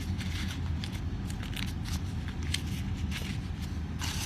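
Colored printer paper rustling and crinkling in short, irregular scrapes as origami units are folded and slid into one another, the loudest rustle near the end, over a steady low hum.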